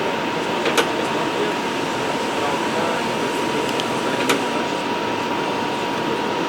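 Delfin DM 3 industrial vacuum cleaner running steadily, its motor giving a constant rushing noise with a thin high whine, with a couple of short clicks.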